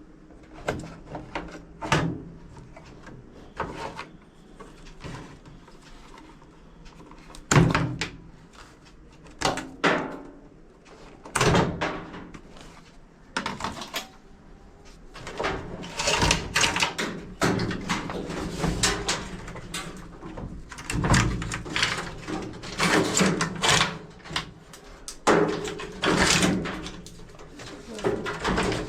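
Scattered knocks, clicks and clatter of hands working on a washing machine while its wiring harness is replaced, coming thicker and louder in the second half, with voices in the background.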